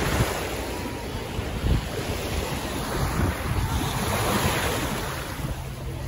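Small waves washing onto a sandy shore, with gusts of wind on the phone's microphone.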